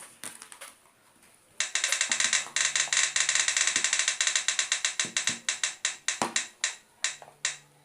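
Roulette wheel spinning and ticking: a fast run of clicks starts about one and a half seconds in and slows steadily to a few spaced ticks near the end as the wheel comes to rest.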